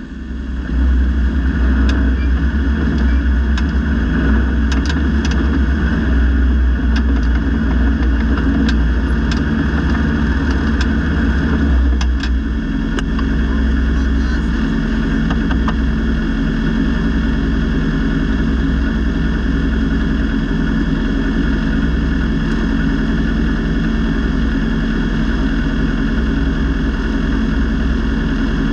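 Polaris RZR XP 1000 UTV's naturally aspirated twin-cylinder engine running at race pace with a steady, deep drone. Sharp ticks and knocks come and go through the first half, and the lowest rumble eases a little after about 13 seconds.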